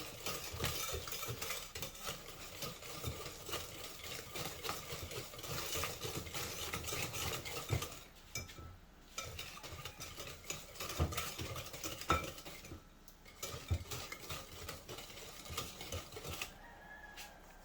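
A whisk beating a sugar, butter and egg mixture in a mixing bowl, quick irregular tapping and scraping against the bowl as it is whipped until light and ribbony. The whisking pauses briefly about halfway, again a few seconds later, and near the end.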